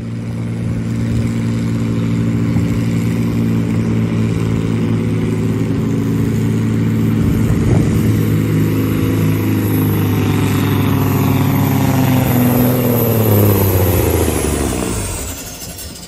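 Diesel semi-truck engine, 20,000 lb local class, running hard at steady revs while pulling a weight-transfer sled. Near the end the revs drop and the engine sound fades away as the pull ends.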